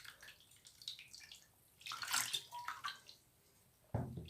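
Water splashing and dripping in uneven bursts as shampoo is rinsed off a smartphone by hand, with a knock near the end.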